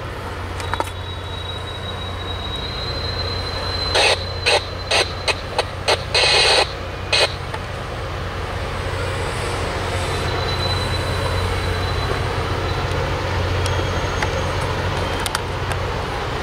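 An approaching train's locomotive rumbling steadily, with a faint thin high squeal now and then. About four seconds in comes a loud cluster of about seven short, sharp-edged hissing noise bursts over some three seconds.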